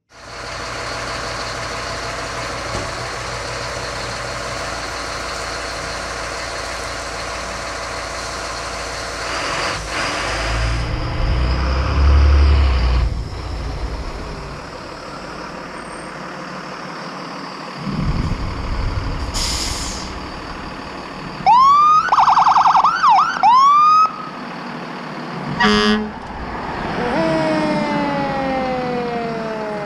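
Road traffic going by, with a heavy vehicle rumbling past, then an emergency vehicle siren sounding in a short run of quick rising whoops, the loudest sound here. Near the end a long falling siren wail follows.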